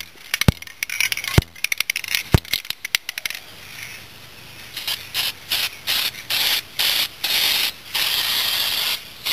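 Short hissing bursts of an aerosol can of copper gasket sealant being sprayed onto a head gasket, starting about five seconds in and repeating about eight times. Before that, rubbing with a few sharp clicks as the gasket is handled and wiped.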